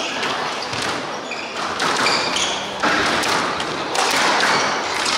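Squash rally: the ball struck by rackets and smacking off the walls, a sharp crack every second or so, with short high squeaks of court shoes on the wooden floor.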